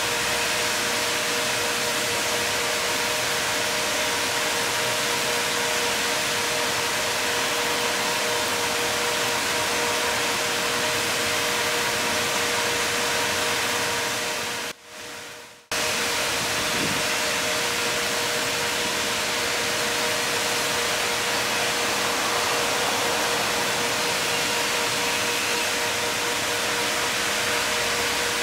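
Wastewater gushing steadily from a concrete drainage pipe into a river, a dense rushing noise with a steady hum underneath. The sound drops out for about a second midway, then resumes.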